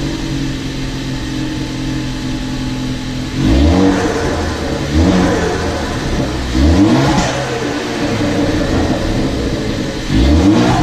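Ford Focus ST's turbocharged engine idling, then blipped four times, starting about three seconds in. On each lift-off the turbo flutters ("tututu"), the compressor surge of a setup whose blow-off valve is blocked off.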